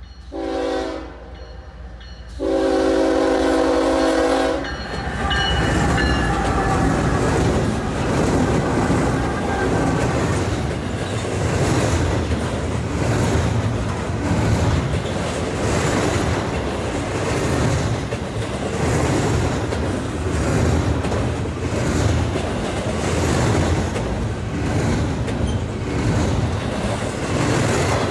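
Norfolk Southern freight train's multi-chime air horn sounding a short blast and then a long one, followed by the train passing close by: diesel locomotive rumble and a steady clickety-clack of wheels over the rail joints.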